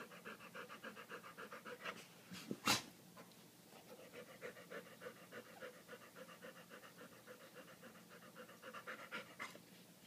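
Yellow Labrador retriever panting fast and evenly, stopping shortly before the end. One sharp click cuts in about three seconds in.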